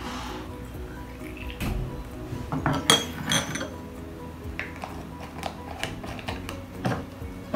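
Water poured from a glass pitcher into a glass bottle of cut apple and dates, the pitch rising as the bottle fills; then sharp glass clinks and knocks as the pitcher is set down, and small clicks as the bottle's cap is screwed on. Background music throughout.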